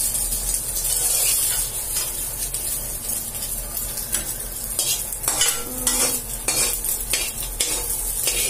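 Egg frying in hot oil in an aluminium wok, with a steady sizzle. Through the second half a metal spatula scrapes and knocks several times against the pan and plate.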